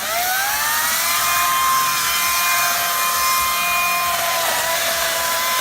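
Gas chainsaw revving up, its pitch rising over about the first second, then held at a steady high-revving whine at full throttle.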